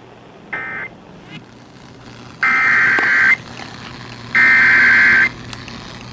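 Emergency Alert System SAME digital data bursts, a harsh buzzing screech. A short end-of-message burst comes about half a second in, closing the previous warning. Then two header bursts of about a second each, roughly two seconds apart, open the next warning.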